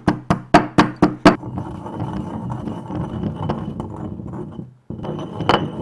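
Pestle pounding peppercorns in a mortar: sharp knocks about four a second for the first second and a half, then a steadier, rougher crushing noise, with one more knock near the end.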